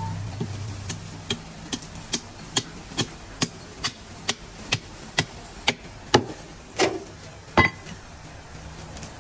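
Meat cleaver chopping a leg of mutton on a wooden butcher's block: a steady run of about two strikes a second, then three heavier blows spaced further apart near the end.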